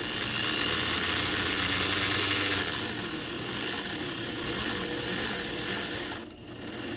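Speedy Spooler winding typewriter ribbon from a supply reel onto a typewriter reel at speed: a steady whirring hiss that eases a little after about three seconds and dips near the end.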